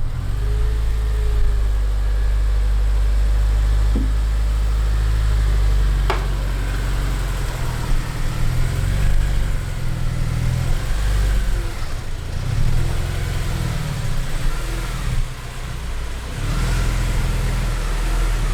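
Car engine running with a low rumble and road noise, rising and falling slightly, with a sharp click about six seconds in.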